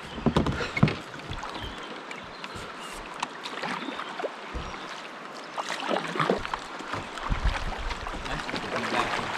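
Kayak paddle strokes dipping and splashing in a river, with water washing along the kayak's hull; the strokes come as irregular louder swells over a steady rush of moving water.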